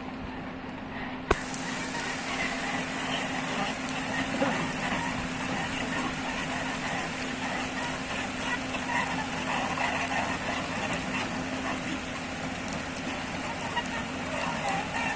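Heavy-machine engine running steadily under the even hiss of heavy rain. A sharp click comes about a second in, after which the rain hiss turns brighter.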